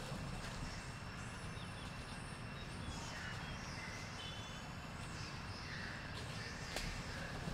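Outdoor background noise: a steady low rumble with a few faint, high chirps and whistles from birds or other animals.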